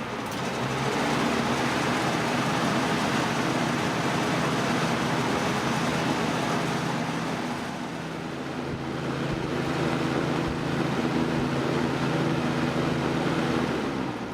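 Lakewood P-223 20-inch box fan running for the first time, never used before: a steady rush of moving air over a low electric motor hum. The level dips about eight seconds in, climbs again, and starts to fall away at the very end.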